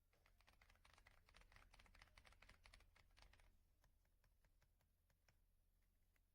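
Faint typing on an RK Royal Kludge R75 gasket-mounted mechanical keyboard: a quick, dense run of keystrokes for about three and a half seconds, then slower, scattered key presses.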